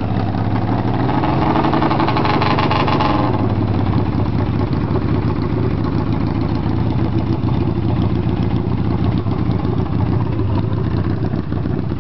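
Yamaha XS650 parallel-twin engine running on its first start as a project bike: revved up for about three seconds, then the revs drop suddenly and it settles into a steady idle.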